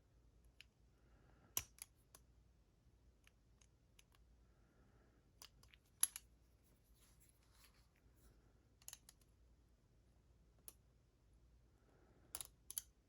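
Faint, scattered metallic clicks and taps of small tools working at the C-clip on a lock's core as the lock is taken apart. The sharpest click comes about six seconds in, and there is a quick cluster of clicks near the end.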